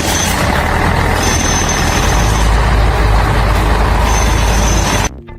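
Loud, steady heavy machinery noise with a deep engine rumble and a high whine that comes and goes; it cuts off suddenly near the end, giving way to music.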